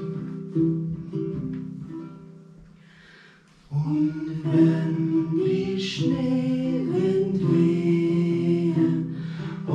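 Acoustic guitar notes that fade away into a short hush. Then, about four seconds in, a voice starts singing a slow melody with guitar accompaniment.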